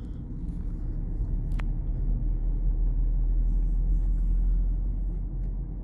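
Steady low rumble of engine and road noise inside a moving car's cabin, with one faint click about a second and a half in.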